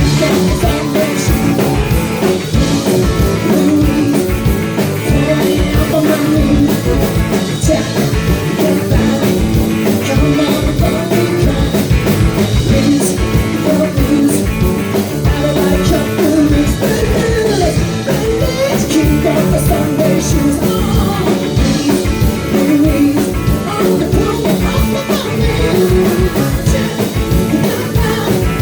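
Live rock band playing a song with drums, guitar and a lead singer, a steady beat throughout.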